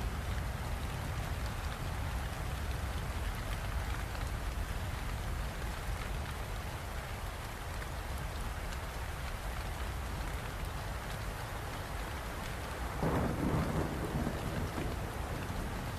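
Steady heavy rain with a low rumble of thunder underneath; a louder roll of thunder swells up near the end.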